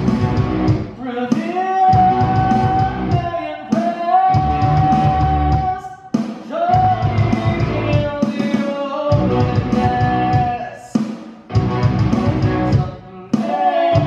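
Live rock music with a singer holding long, drawn-out notes in phrases of two to three seconds, over drums and a band.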